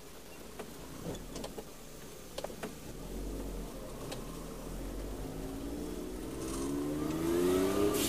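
Car engine heard from inside the cabin, pulling away and rising in pitch as it accelerates over the last two seconds. A few light clicks and rattles come in the first three seconds.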